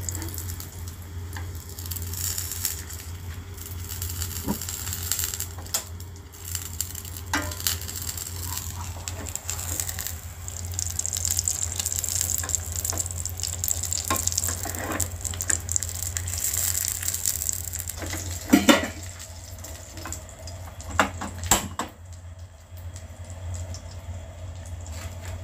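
A flat spatula scraping and knocking against a nonstick frying pan as a thin egg crepe is rolled up, over the steady hiss of the batter frying. A few sharper, louder knocks come in the second half, with a steady low hum underneath.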